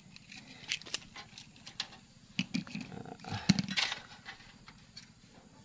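Light clicks and rustling from a thin jumper wire being handled over a circuit board, with a short, louder low-pitched sound about two and a half to four seconds in.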